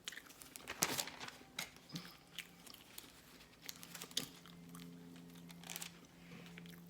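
Close-miked eating: a person biting and chewing food, with irregular crunches and wet mouth clicks. A faint steady hum sits underneath.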